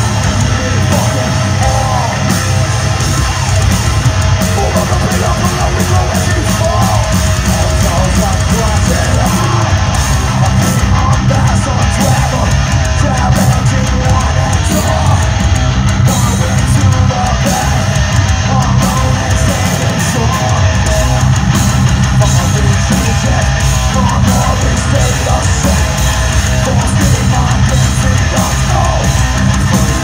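A heavy metal band playing loud live: distorted electric guitars over a driving drum kit.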